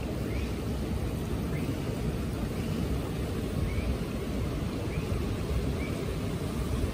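A steady low rushing rumble, with faint short high chirps that recur about once a second.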